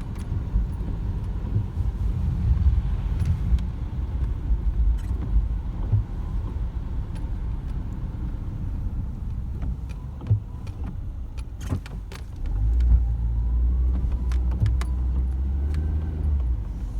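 Car driving on snowy roads, heard from inside the cabin: a steady low road and engine rumble with scattered small clicks and knocks. About twelve seconds in, the rumble gets louder and stays up.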